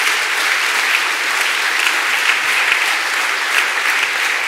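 Audience applauding, a dense steady patter of clapping.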